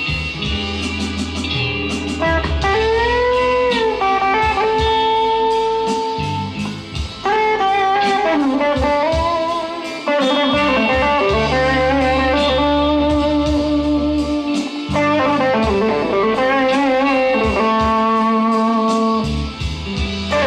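Fender Player Stratocaster HSS Plus Top electric guitar playing a bluesy lead line, with string bends and vibrato on held notes, over low bass notes.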